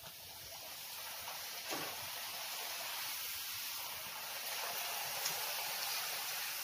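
Hot oil sizzling steadily as a thin rolled sheet of chiroti rava dough deep-fries, the sizzle building over the first second.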